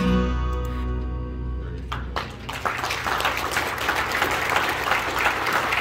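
The final chord of acoustic guitars rings out and fades, then an audience breaks into applause about two seconds in and keeps clapping.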